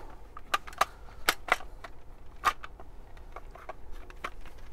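Hard plastic parts of a JET CEDA blaster body clicking and knocking irregularly as the two halves are worked together and slid into place against the resistance of the bolt sled.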